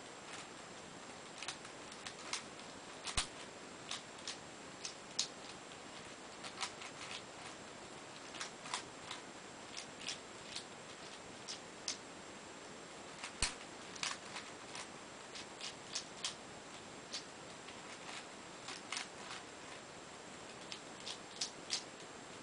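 The plastic layers of a Cube4You 3x3x7 cuboid twisty puzzle click and clack as they are turned by hand, in irregular sharp clicks with short pauses. The two loudest clacks come about three seconds in and about thirteen seconds in.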